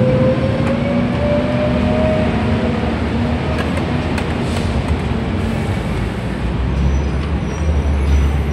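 Street traffic noise: a heavy vehicle's engine running close by, its pitch rising over the first couple of seconds as it pulls away, with a deep rumble swelling near the end.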